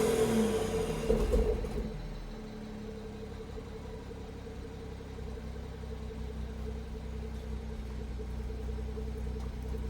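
BMW M240i's B58 turbocharged inline-six, running a catless VRSF downpipe, drops back from a rev and settles to idle within about two seconds, then idles steadily. The owner reports that it has idled roughly since the downpipe went on.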